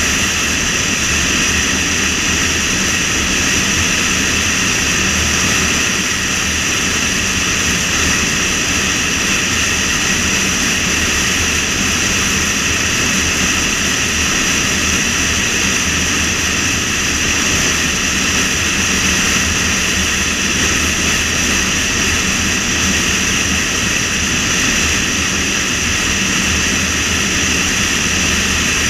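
A car driving at road speed: a steady rush of wind and tyre noise, with a constant high hiss running through it.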